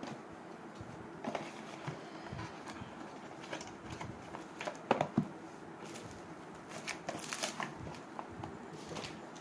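Scattered rustling and light clicks of small objects being handled, over a faint steady hum, with a cluster of louder clicks about five seconds in.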